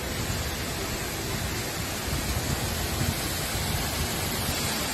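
Heavy rain pouring and floodwater running through a flooded street: a steady, even hiss.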